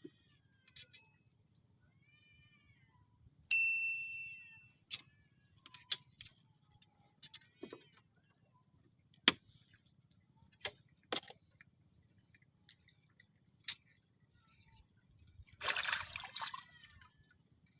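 Scattered sharp clicks and knocks, one of them a ringing metallic clink about three and a half seconds in that fades over about a second, then a short burst of noise near the end.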